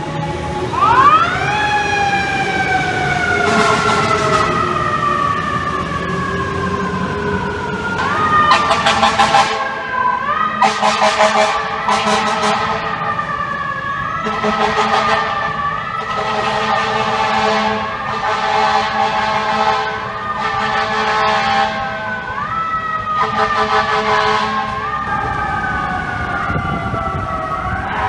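FDNY fire truck's mechanical siren winding up to a high wail about a second in and falling slowly. From about eight seconds on it is wound up again every two to three seconds, with repeated blasts of the truck's air horn over it.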